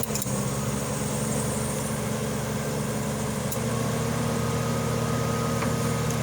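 1960s Mitchell dehumidifier running, its Freon-12 compressor and fan motor giving a steady hum. There is a sharp click as the cutoff switch is worked, and another about three and a half seconds in, after which a faint higher tone joins the hum.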